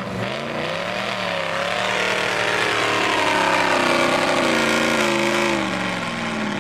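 Tatra 805 truck's engine running under load while the truck works across a steep dirt slope. The engine note rises and falls as the revs change, getting louder towards the middle.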